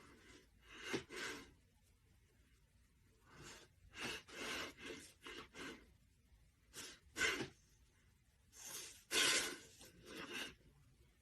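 Quiet, breathy puffs of air in four short clusters, like gasps or sighs, with stillness between them.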